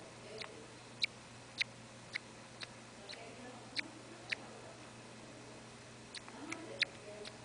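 Faint, sharp ticking at a steady pace of about two ticks a second, pausing briefly past the middle, over soft low background sounds.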